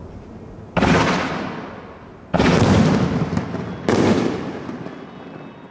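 Aerial fireworks bursting overhead: three sudden booms about a second and a half apart, each fading away over a second or so.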